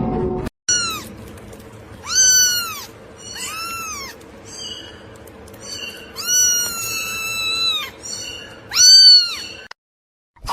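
A cat meowing repeatedly: about five or six high-pitched meows, each rising then falling in pitch, with a longer drawn-out one about six seconds in.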